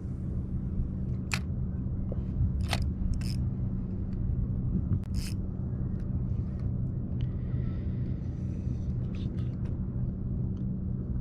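A few sharp clicks and ticks from a spinning reel and tackle during casting, over a steady low hum.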